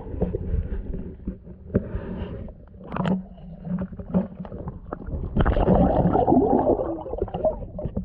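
Muffled water sound picked up by a camera under the surface while a hooked rainbow trout struggles nearby: scattered knocks and low sloshing, then a louder rush of churning water about five and a half seconds in that lasts some two seconds.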